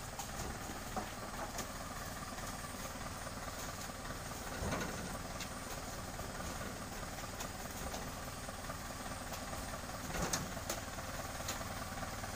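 Tractor engine idling steadily while oil palm fruit bunches are thrown up into its trailer, landing with a few thuds, the loudest about five seconds in and two close together near ten seconds.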